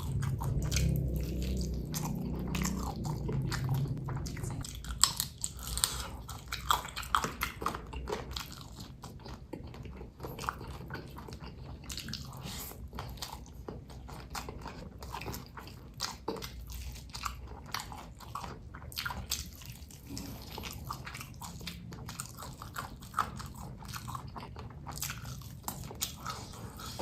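A person biting and chewing food close to the microphone, with many short crisp crunches throughout.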